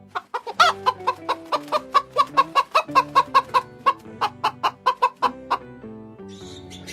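Chicken clucking in a fast, even run of short, sharp calls, about four to five a second, that stops about a second before the end, over background music.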